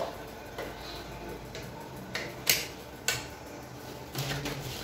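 A handful of separate sharp clicks and clinks of kitchen containers and lids being handled at the counter, the sharpest about two and a half and three seconds in.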